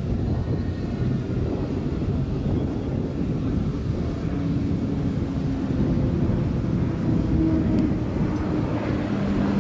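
KAI KT-1B Woongbi single-engine turboprop trainers flying overhead in an aerobatic display: a steady, deep engine and propeller drone, with a faint steady engine tone coming through from about halfway.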